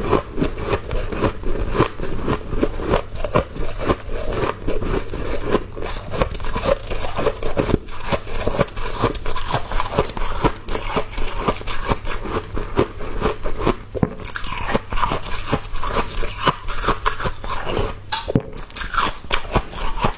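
Close-up biting and chewing of small, soft, powdery ice chunks: a rapid, continuous run of crisp crunches that turns brighter about two-thirds of the way in. A low hum sits underneath and stops near the end.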